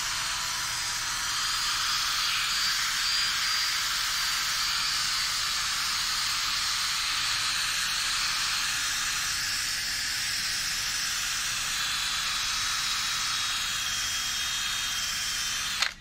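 Steel wire brush wheel spun by a handheld drill, scrubbing a light layer of rust off a steel bar: a steady hissing rasp that cuts off suddenly at the very end.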